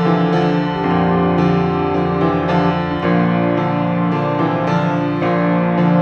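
Instrumental background music, with sustained keyboard-like notes changing about every half second.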